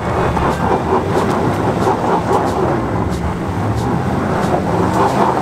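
2021 Chevy Tahoe Z71 engine running steadily under load as it pushes up a steep rocky slope, with tyres working on loose gravel. It has open differentials and no locker, so a wheel loses traction and the SUV gets stuck.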